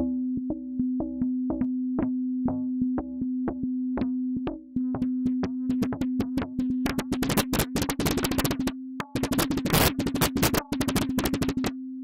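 Meng Qi Wing Pinger, a synthesizer that makes its sound by pinging analog filters, playing a steady low tone under rhythmic pinged clicks, about three a second. With exponential FM, the pings speed up and thicken until, about seven seconds in, they turn into a harsh, noisy crackle.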